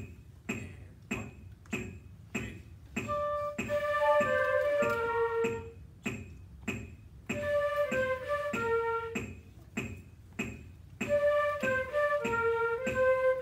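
A section of student flutes playing a melody in unison over a steady metronome click of about two beats a second. The click runs alone for the first few seconds, then the flutes come in and play three short phrases with brief breaks between.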